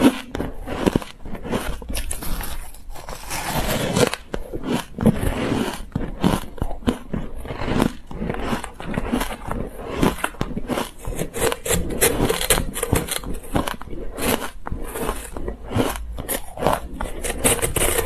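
Crushed ice chewed close to a clip-on microphone: a rapid, uneven run of crisp crunches, over and over.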